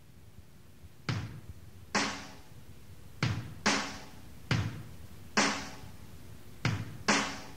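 Music: a slow drum intro of about eight single and paired drum hits, roughly one a second.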